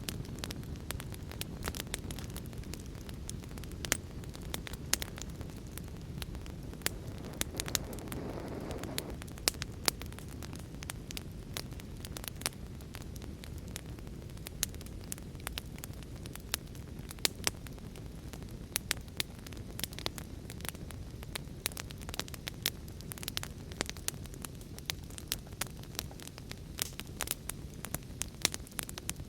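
Fire crackling: a steady low rumble with frequent sharp pops and snaps, and a brief hiss about eight seconds in.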